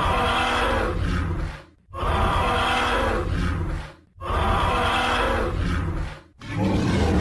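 Creature roar sound effect, repeated: four long roars of about two seconds each, with brief gaps between them.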